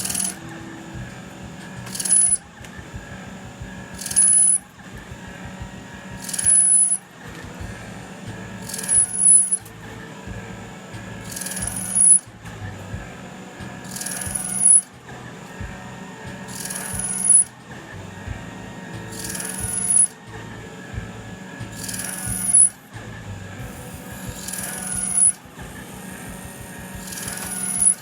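CNC lathe taking repeated cuts with a roller turning tool. About every two and a half seconds a cutting noise builds up and stops abruptly with a short high chirp, over a steady machine hum.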